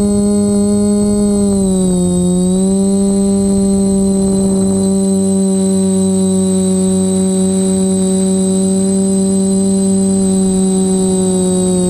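TBS Discovery quadcopter's electric motors and propellers humming steadily, picked up by the onboard camera, the pitch dipping briefly about two seconds in and then holding, with a faint steady high whine above it.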